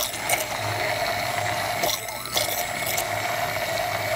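Immersion blender running in a tall plastic beaker, pureeing pears, vinegar and oil into a liquid dressing: a steady motor whine with the blade churning liquid, dipping briefly about two seconds in.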